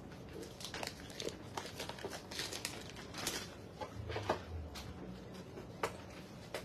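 Clear plastic packaging crinkling and rustling in irregular bursts as it is handled, with a few sharper clicks, the loudest about four and six seconds in.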